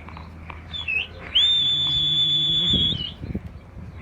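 A person whistling: a short high whistle about a second in, then one long, steady high whistle lasting about a second and a half.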